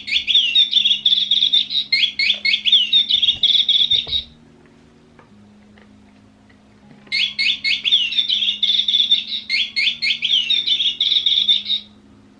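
Electronic bird-chirp sound from a cat toy bird: two bursts of rapid, high chirps and tweets, each about four seconds long, separated by a pause of about three seconds.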